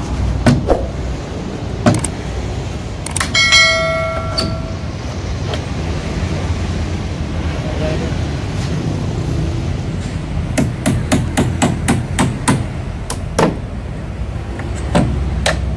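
Hammer striking a wooden crate and its metal corner brackets: a few knocks, a ringing metal clang about three seconds in, then a quick run of blows between about ten and a half and thirteen and a half seconds, over a steady low rumble.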